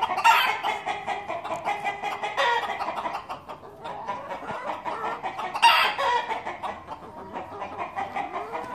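A flock of chickens clucking, many calls overlapping into a noisy chorus, with two louder calls: one just after the start and one about two thirds of the way through.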